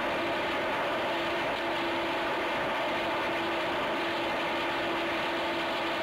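Electric motor and propeller of an FPV Raptor foam RC plane running steadily in flight, under a heavy, even hiss.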